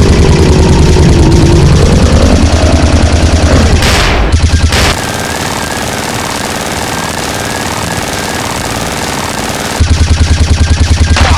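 Rapid automatic gunfire sound effect, several shots a second, in a long burst that breaks off about five seconds in, then a quieter stretch, then a second loud burst near the end.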